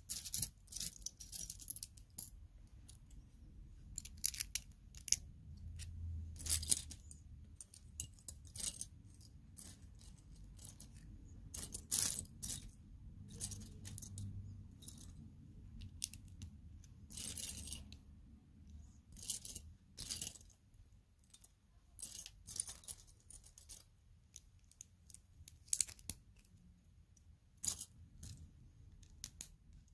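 Small plastic Lego pieces clinking and rattling in short, irregular clusters as fingers sift through a loose pile, with occasional clicks as bricks are fitted together.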